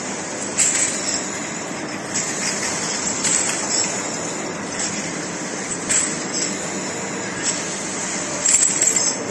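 Rotary ultrasonic vial and ampoule washing machine running steadily, with scattered sharp clinks of glass vials knocking as they are handled.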